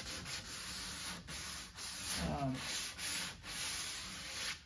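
Hand sanding of dried Titebond glue along a plywood seam with a 150-grit sanding block, in repeated back-and-forth strokes, a scratchy hiss. The glue is being scuffed so fresh glue will bond to it.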